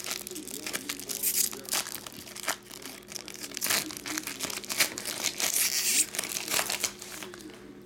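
Foil trading-card pack wrapper being torn open and crumpled by hand: irregular crinkling and crackling throughout.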